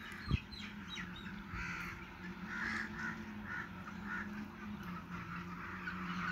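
Faint bird calls in the background: a run of short calls repeating every half second to a second, over a low steady hum.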